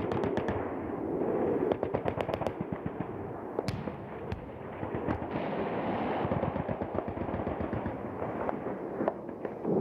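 Rapid automatic gunfire: a dense crackle of machine-gun shots, with a tight run of sharp cracks about two seconds in, over a continuous background din.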